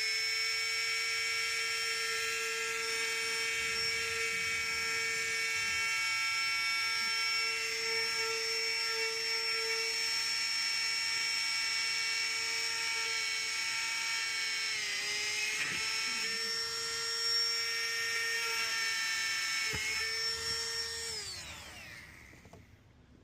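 Small high-speed windshield chip-repair drill running as a steady high whine while it drills into the rock chip in the glass. Its pitch dips briefly twice under load, and it winds down near the end.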